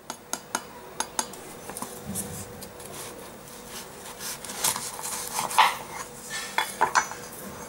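Knife cutting through a crisp, flaky deep-fried samosa on a wooden board. A few sharp clicks come near the start, then a run of crackling crunches in the second half as the blade breaks through the pastry.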